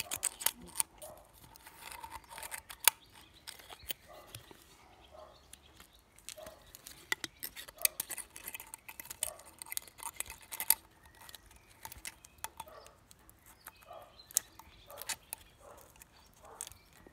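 Irregular small metallic clicks and scrapes of a ring spanner and feeler gauge working at the valve-clearance adjuster on a pitbike engine's rocker arm.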